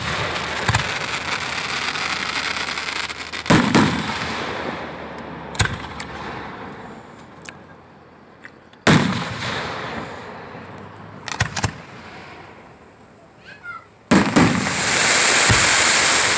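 Aerial fireworks shells bursting overhead: a sharp bang every few seconds, each followed by a long fading crackle of the exploding stars. Near the end a loud bang sets off a bright, sustained crackle.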